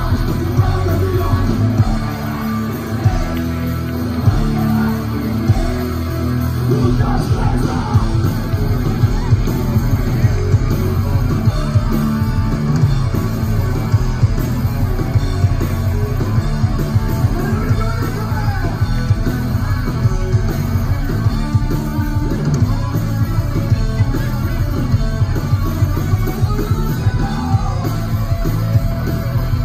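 Live rock band playing loud, with electric guitars, a steady drum beat and a lead vocal, heard from among the audience.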